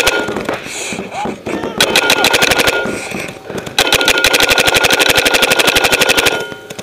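Bursts of rapid fully automatic fire from skirmish-game guns, about eighteen shots a second. A burst ends about half a second in, another runs for about a second, and a longer one of about two and a half seconds follows.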